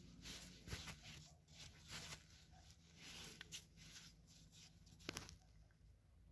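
Near silence with faint rustles and a few soft clicks as gloved fingers pull a field mushroom out of dry grass.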